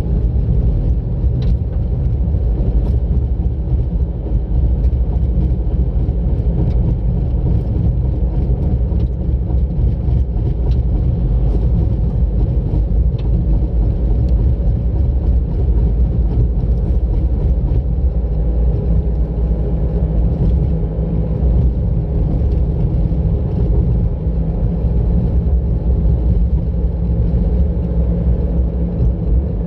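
Car driving along a road: a steady low rumble of engine and tyre noise, with a few faint ticks.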